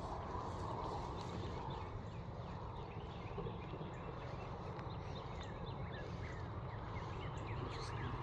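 Footsteps walking through field grass at an even pace, with many short bird chirps behind them.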